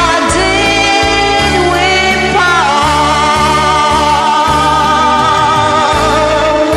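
A woman singing along to a karaoke backing track. About two and a half seconds in she slides up into one long held note with vibrato.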